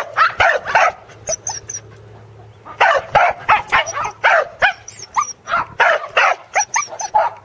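Pembroke Welsh Corgi barking in quick, high yips while herding sheep: a short run at first, then after a pause of about two seconds a long string of about three barks a second.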